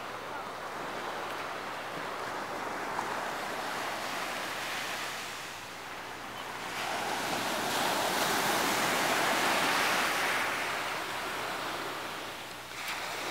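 Ocean surf washing up a sandy beach: a steady rush of water that swells louder in the second half, then eases off near the end.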